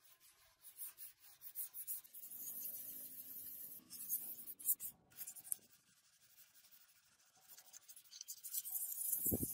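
Gloved hand rubbing a flat sheet, likely sandpaper, back and forth over the putty-coated steel legshield of a Vespa scooter body, a dry scratchy rubbing in repeated strokes. The strokes pause for about two seconds in the middle and start again. A few low thumps come near the end.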